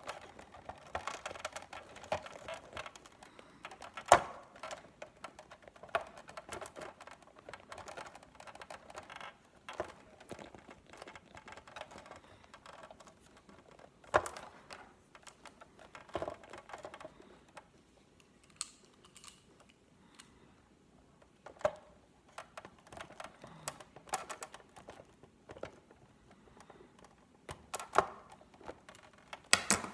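Irregular small clicks, taps and knocks of plastic parts being handled and pressed together while a replacement gear is fitted into the motor mechanism of a Big Mouth Billy Bass animatronic fish. A few sharper knocks stand out, about four seconds in, fourteen seconds in and near the end.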